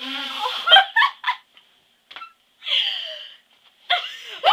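Girls giggling in short bursts, with breathy laughs between brief pauses.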